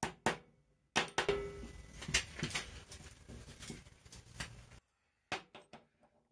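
Light hammer taps on the steel body of a manual impact driver, knocking a part back on during reassembly. In between, a stretch of clattering as metal tools are handled, and a few more quick taps near the end.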